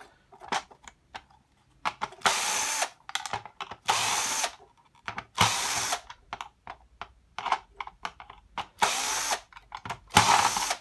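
A 14.4 V Vanon cordless drill-driver run in five short bursts, backing screws out of an electric shower's plastic housing. Small clicks and knocks come between the bursts.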